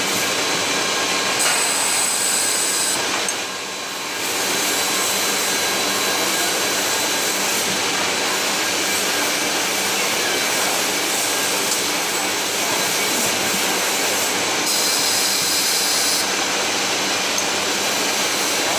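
Inline pail filling and lidding machine running, a steady mechanical din of the slat-chain conveyor and lidding station as pails are carried through and lidded. The noise dips briefly about three seconds in.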